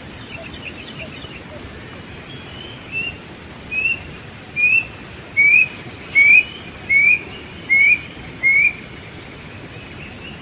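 A wild bird calling a series of eight short, rising whistled notes, about one every three-quarters of a second, growing louder, after a few faint chirps near the start.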